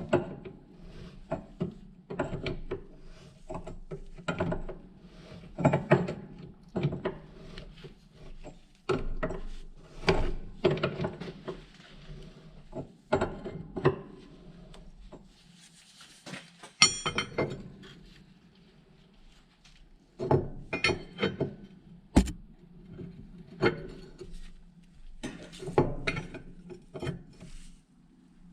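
Wrench and metal parts clinking and knocking irregularly as the big nut on a battery disconnect switch is worked with a hand wrench, with a short rattle partway through and one sharp click a little later.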